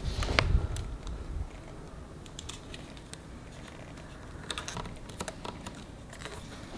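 Black vinyl electrical tape being pulled off the roll and wrapped around motorcycle wiring: a scatter of small crackling ticks, thickest near the end, with a dull handling bump of the wires and frame in the first second.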